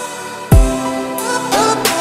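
Background music with held tones and a deep bass drum hit about half a second in.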